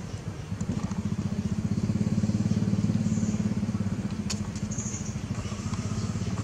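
A small engine running steadily, a low pulsing hum that does not change, with a few brief high chirps over it.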